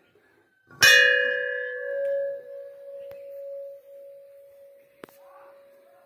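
Hanging brass temple bell rung by hand: struck once hard about a second in, then ringing with several tones and a slowly fading hum. A lighter second tap of the clapper comes near the end.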